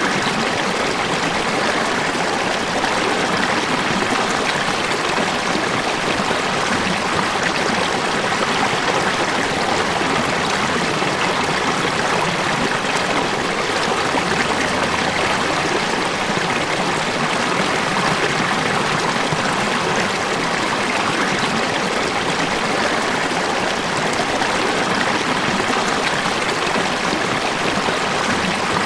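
River or stream water running steadily over rocks, a constant rushing and trickling.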